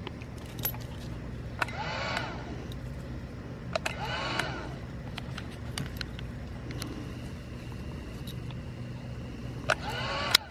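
A steady low hum, like a small motor running, with scattered sharp clicks and three short wavering pitched sounds about two, four and ten seconds in.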